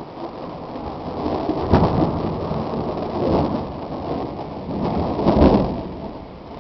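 Rolling thunder from a close storm, rumbling in several swells, the loudest about five seconds in, then dying away near the end, over the steady hiss of rain.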